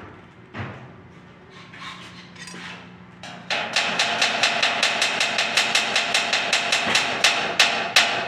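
Handheld power driver running against the steel stud soffit framing, sinking a screw: a steady whine with a fast even rattle that starts a little past three seconds in and runs about five seconds. Light metal knocks come before it.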